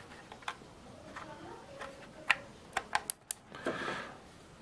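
Small, light clicks and taps of fingers handling the plastic case of a Moultrie A300i trail camera, a handful of separate sharp clicks around the middle, with a soft rustle near the end.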